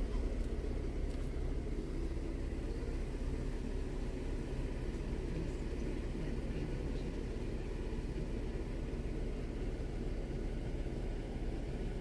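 Car driving slowly, a steady low rumble of engine and road noise.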